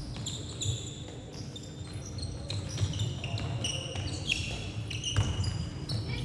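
Players' shoes squeaking on a sports hall floor during an indoor handball game, many short high squeaks at varying pitches, with a ball bouncing and thudding on the court.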